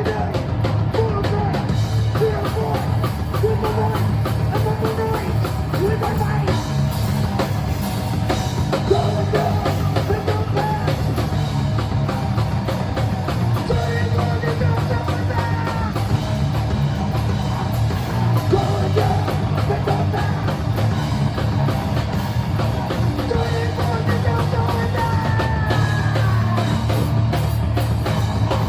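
Heavy rock band playing live: a drum kit driving a loud, dense mix with guitar and yelled vocals.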